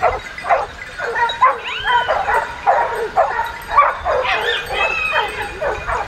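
Dogs barking and yipping in quick, overlapping barks, with a few higher rising yelps mixed in.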